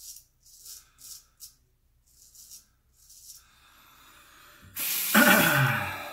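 Gold Monkey straight razor scraping through lathered stubble on the neck in a few short rasping strokes. Near the end comes a louder rushing sound with a falling hum, the loudest thing here.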